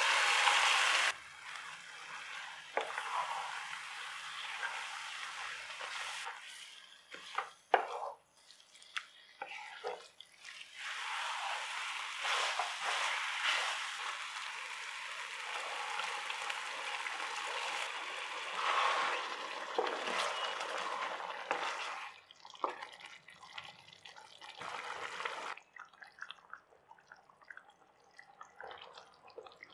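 Chicken pieces in a thick green marinade sizzling in hot oil in a pan, stirred with a wooden spatula, with scraping clicks. Near the end the sizzle gives way to a quieter curry gravy bubbling with soft, scattered pops.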